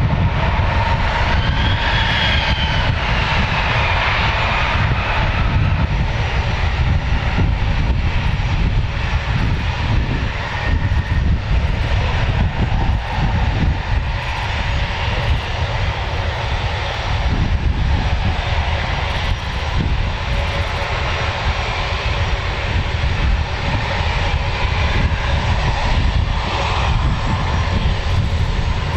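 Fixed-wing military aircraft's engines running: a loud, steady rumble with a high whine that falls in pitch about two seconds in.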